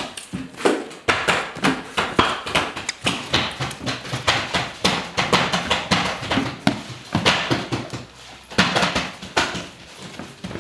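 A fast, irregular run of knocks and slaps, several a second.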